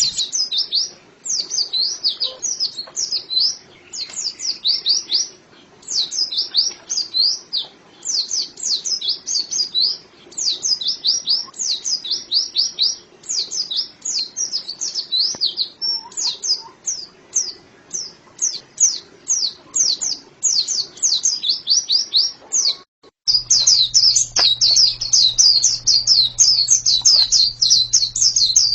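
A white-eye (pleci) singing a long, fast, unbroken string of high chirping notes and trills. After a brief cut-out about four-fifths of the way through, a steady low hum sits under the song.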